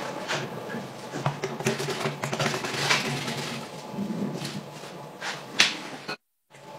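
Scattered light clicks and knocks of plastic and metal parts being handled as an air filter housing is fitted to a pocket bike engine's carburettor and the engine is picked up. The sound drops out completely for a moment near the end.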